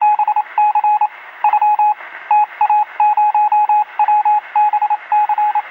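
Morse code beeping: a single high tone keyed on and off in quick dots and dashes, in irregular groups, over a faint hiss.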